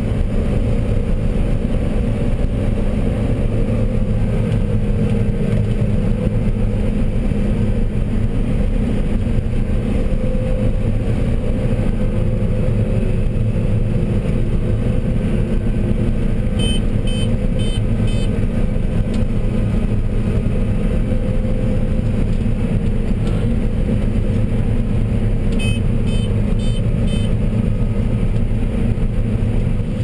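John Deere 9770 combine running steadily while harvesting corn with a 12-row corn head, heard from inside the cab as an even machine drone. About halfway through and again near the end, four short electronic beeps sound in quick succession.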